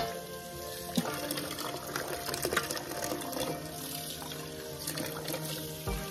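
Tap water running from a kitchen faucet and splashing onto a metal baking sheet as it is rinsed in the sink, with a sharp knock right at the start and another about a second in.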